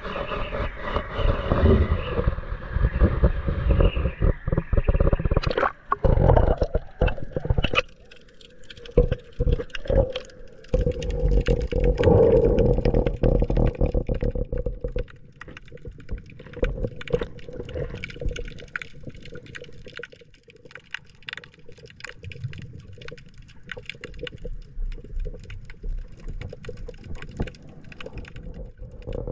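Muffled underwater sound picked up by a GoPro lowered beneath a pier. For about the first fifteen seconds there is heavy sloshing and rumbling, then it turns quieter, with many sharp clicks and a faint steady hum.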